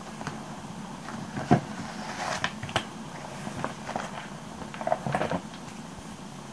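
Light handling of stationery on a desk: a soft knock about a second and a half in, then scattered small taps, clicks and plastic rustles as a clear pouch and a roll of washi tape are handled.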